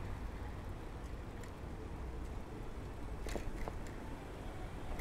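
Steady low rumble of wind and road noise from a moving mamachari city bicycle, with a few short clicks or rattles a little past three seconds in and again at the very end.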